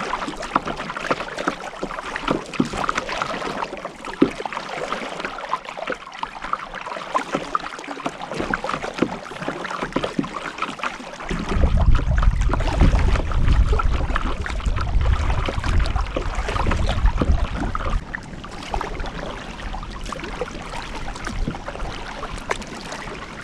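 Kayak paddling: water splashes and ticks against the paddle and hull. About halfway through, a strong low rumble comes in for several seconds and then drops away.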